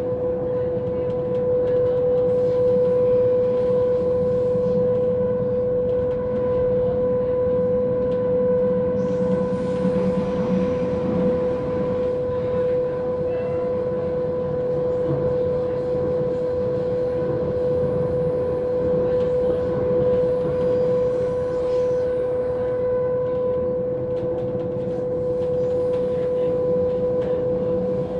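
Passenger train running, heard from inside the carriage: a steady rumble of the running gear with a constant high-pitched hum held at one pitch over it, and a brighter hiss joining from about nine seconds in.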